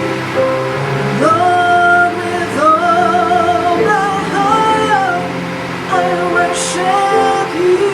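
Slow worship song: a woman sings a melody of long held notes, some with a wavering vibrato, over sustained accompaniment chords.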